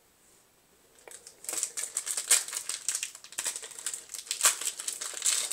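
Foil wrapper of a Yu-Gi-Oh! booster pack crinkling and crackling in the hands as it is worked open, starting about a second and a half in after a brief hush.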